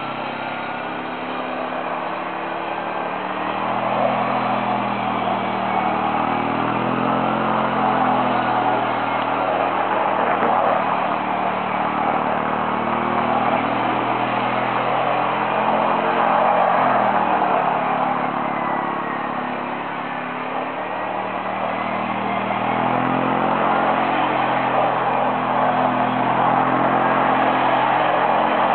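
ATV engine running and revving as the quad turns doughnuts on the ice, its pitch rising and falling repeatedly.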